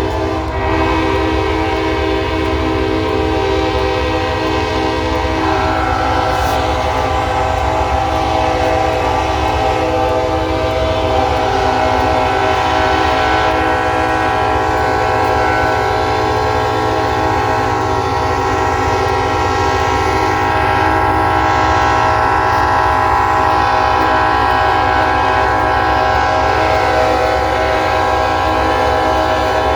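Many locomotive horns blowing at once in one long, unbroken chorus of overlapping chords, with more horns joining about five and again about eleven seconds in.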